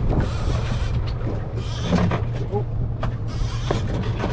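Spinning reel's drag screaming in three runs as a big fish strips line, the loudest the angler has heard that reel, over a steady low rumble.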